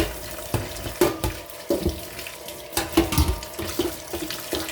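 Water running from a sink tap while the fan's blade and grille are rinsed under it, with irregular knocks and clatter as the pieces are handled against the sink.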